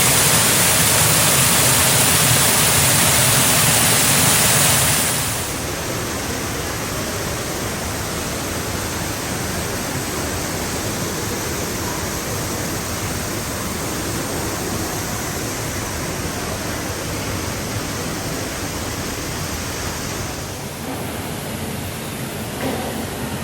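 Steady rushing water, like a waterfall, loud and full for about the first five seconds, then a steadier, quieter rush.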